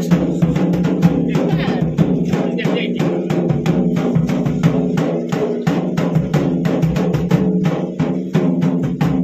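Music with a quick, steady drum beat over a held low tone.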